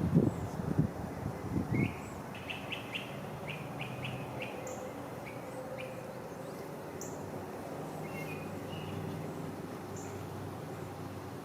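A songbird chirping in short quick notes over the steady low hum of honeybees, with a few knocks in the first two seconds as the wooden hive frames are handled.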